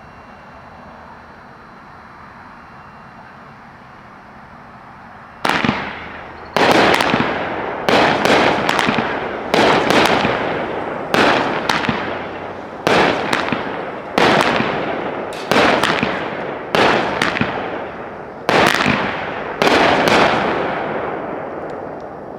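A 16-shot, 200-gram cake firework going off. After about five seconds of quiet, the shots start and come about once a second, some in quick pairs. Each is a sharp bang followed by a noisy tail that fades, and the last one dies away near the end.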